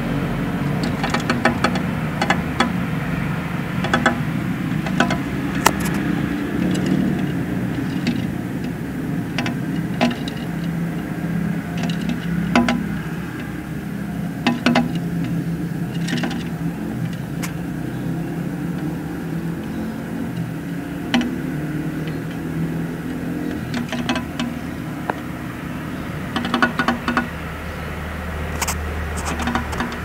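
A prinia's beak and wings tapping and striking against window glass in irregular sharp ticks, sometimes several in quick succession, as the bird tries to get through the pane. A steady low engine-like hum runs underneath.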